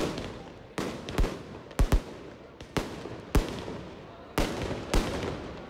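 Aerial firework shells bursting in a display: about nine sharp bangs at uneven intervals, some in quick pairs, each trailing off.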